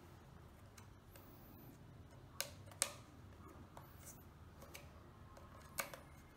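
Faint clicks and knocks of a plastic propeller guard being pushed and snapped onto a quadcopter's arm: a few sharp clicks, two close together a little before halfway and one near the end, over a low steady hum.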